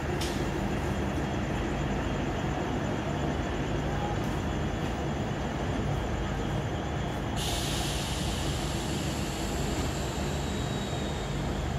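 Diesel-electric multiple unit (DEMU) passenger train running away along the track, a steady low engine hum and rolling noise. About seven and a half seconds in, a steady high hiss sets in suddenly and continues.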